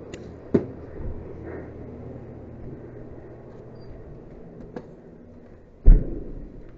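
A few sharp clicks and knocks over a steady low hum; the loudest is a single heavy thump near the end.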